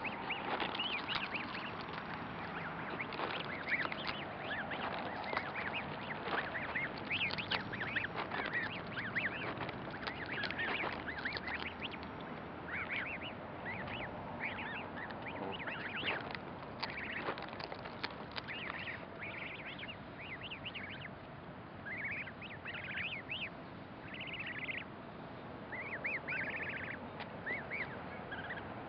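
A group of goslings peeping continuously, many short high calls overlapping one another.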